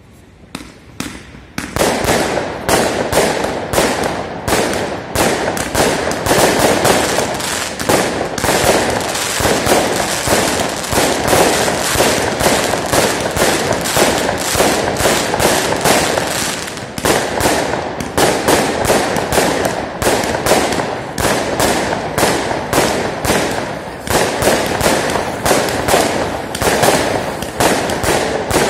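Aerial fireworks bursting overhead in a dense, unbroken barrage of bangs and crackles that starts about a second and a half in.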